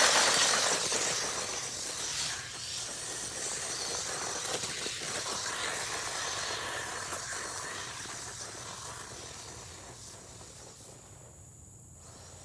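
Traxxas 1/16 Slash RC truck launching on a speed run over loose dirt: a sudden burst of motor and tyre noise with dirt spraying, fading steadily as the truck drives away.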